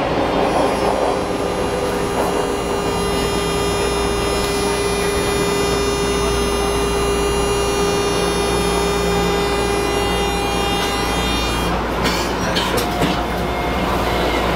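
Hawker Siddeley H5 subway car heard from on board while running between stations: a steady whine of many tones over the rumble of the wheels on the rail. The whine fades about eleven seconds in, and a few clacks of the wheels over the track follow.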